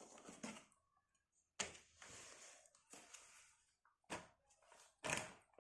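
Faint rustling and handling noises in several short bursts, as the pajamas and their packaging are handled.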